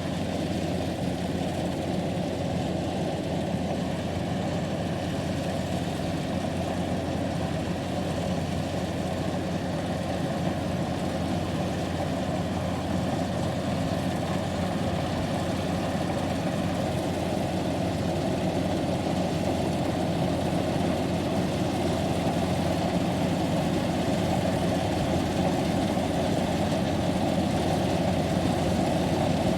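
Kubota rice combine harvester's diesel engine running steadily, growing slightly louder toward the end.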